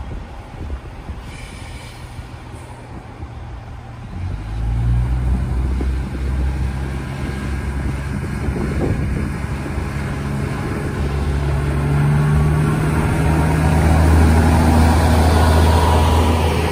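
Diesel engines of a JR Central Kiya 97 rail-transport train throttling up about four seconds in as it pulls away, a low steady drone that grows louder as the cars roll past.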